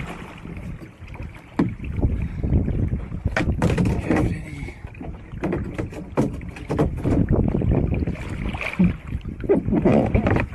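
Sea water slapping and sloshing against a fishing kayak's hull, with wind on the microphone and scattered sharp knocks.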